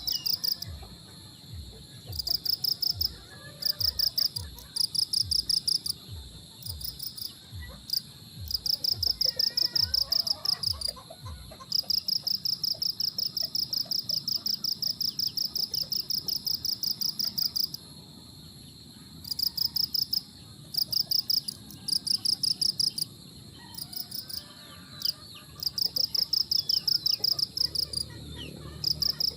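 Insects trilling in a fast, high pulsing chorus that stops and starts in bouts, with faint bird chirps. Low rhythmic thuds run under it for the first dozen seconds, then stop.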